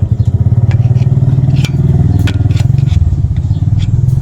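A motor engine idles steadily with a rapid, even low beat. Over it come a few sharp metal clicks and scrapes as the dust cap is worked off a disc-brake wheel hub.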